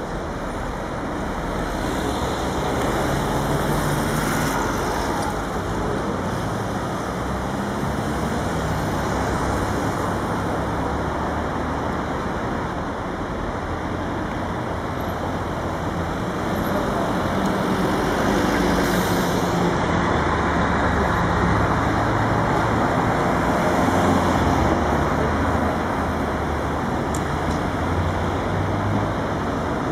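Busy city street traffic: car engines running and cars passing by, a continuous hum of road noise.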